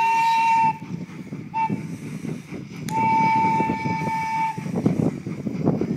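Steam train whistle blowing a steady single note in blasts: one ending just under a second in, a brief toot, then a long blast of nearly two seconds, over a low rumble that grows louder near the end.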